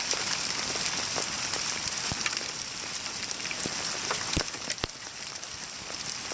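Hailstorm: hail and heavy rain pelting down, a steady dense hiss with many sharp, irregular impacts of hailstones striking.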